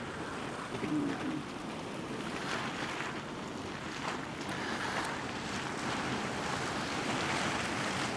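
Boiling water in a geyser vent's hot pool churning and hissing as it throws off steam: a steady rushing noise that swells and eases every second or two.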